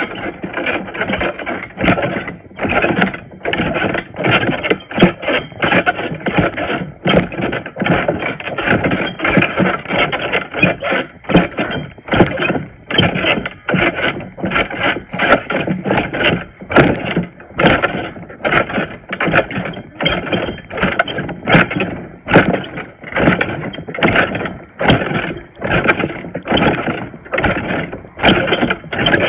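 Trampoline springs and mat creaking and thudding with each bounce, in a steady rhythm of one to two bounces a second.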